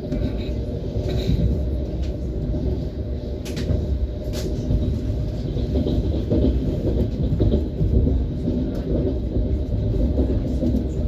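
ES1P Lastochka electric multiple unit running along the line: steady rumble of wheels on rails, with two sharp clicks about three and a half and four and a half seconds in.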